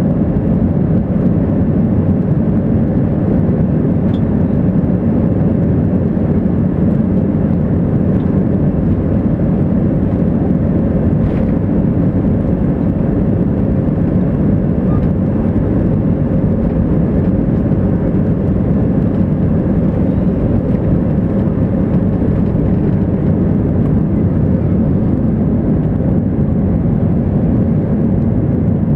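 Cabin noise of an Airbus A320-211 on its take-off roll and lift-off, with the CFM56 engines at take-off thrust. It is heard from inside the cabin as a steady, loud, low rumble with a faint steady drone on top.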